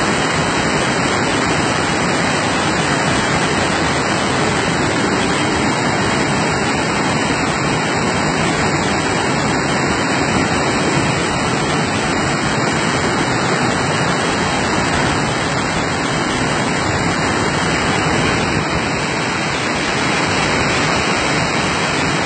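Muddy floodwater pouring over a concrete irrigation weir: a loud, steady rush of water.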